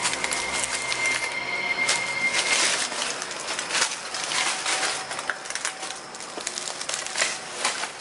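Footsteps crunching, a string of irregular crunches and crackles. A thin steady high tone sounds through the first two or three seconds.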